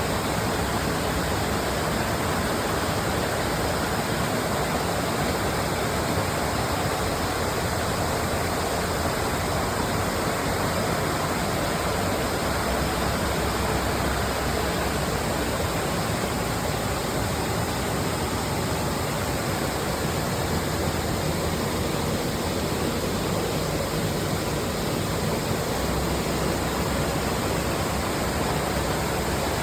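Waterfall: a steady rush of falling water at an even level.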